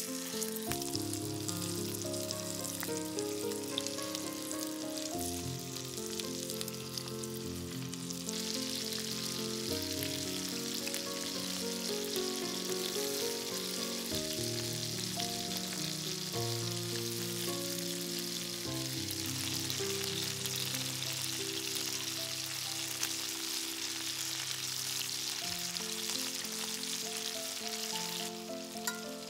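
Chicken wings sizzling as they fry in olive oil and butter in a cast-iron skillet, the sizzle growing much louder about a third of the way in and easing off near the end. Background music with sustained melodic notes plays throughout.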